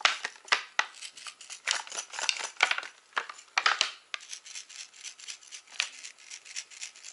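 Clear plastic blister pack holding a baby rattle crackling and clicking as it is turned and squeezed in the hand, busiest in the first half and lighter after.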